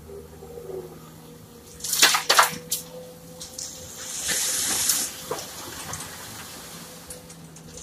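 Gravel tipped from a Komatsu PC200 excavator bucket into a steel dump-truck bed: a few sharp clanks about two seconds in, then a rushing pour lasting under a second, over the steady hum of the excavator's diesel engine.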